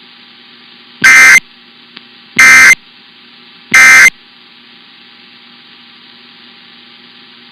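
Emergency Alert System SAME end-of-message data tones: three short bursts of digital buzzing, about a second and a half apart, marking the end of a broadcast test alert. A faint steady hum lies underneath.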